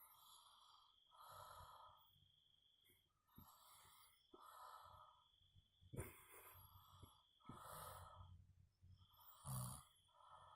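A man snoring faintly: a string of raspy breaths in and out, roughly one a second, with a louder, lower snore about nine and a half seconds in.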